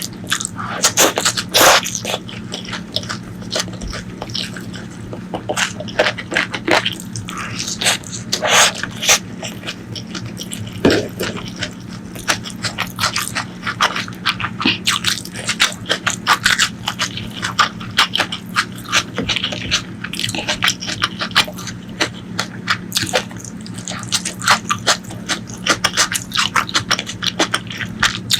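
A person eating rice and pork ribs close to the microphone: continuous chewing with many wet mouth clicks and smacks and occasional scrapes, over a steady low hum.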